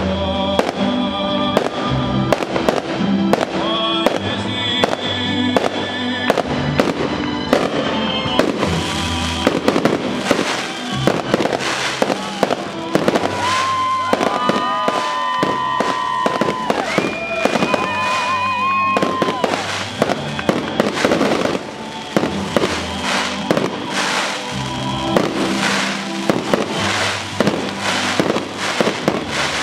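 Fireworks display: aerial shells and rising comets banging and crackling in quick succession, several bangs a second throughout, over accompanying music.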